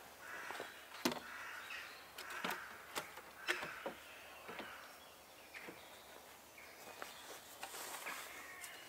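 Wooden poles knocking against each other as a pole is handled and laid on a lean-to shelter frame: a string of sharp knocks and clicks, the loudest about a second in and about three and a half seconds in, with rustling and footsteps in the leaf litter.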